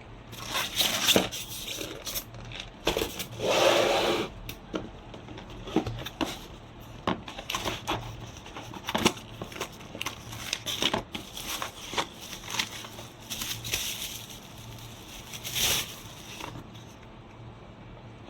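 Plastic packaging crinkling and crackling as it is handled, with many sharp clicks and a few longer rustles, stopping shortly before the end.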